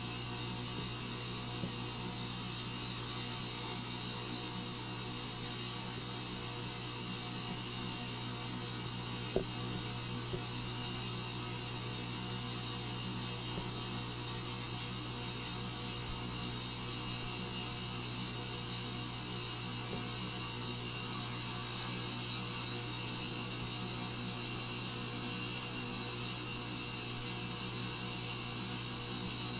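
Steady mechanical hum with several constant tones over an even hiss, an amplified recording of noise reaching a house from next door, heard through a small laptop speaker. A single faint click about nine seconds in.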